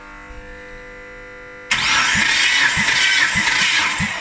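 Mitsubishi 6G74 3.5-litre V6 being cranked over for a compression test on cylinder one: a loud whirring noise starts suddenly about a second and a half in, with a low beat a little under twice a second as the cylinder comes up on compression. The cylinder reads 15.5 kg/cm² on the gauge.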